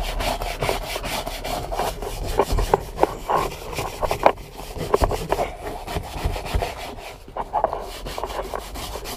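Stiff-bristled detail brush scrubbing the seams of white pleated seat upholstery, in quick, uneven back-and-forth strokes.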